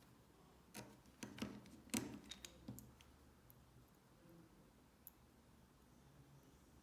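Small sharp clicks and taps of tools and parts being handled inside an opened iPhone 6 during reassembly: a quick cluster of about a dozen between one and three seconds in, then a single faint click a couple of seconds later.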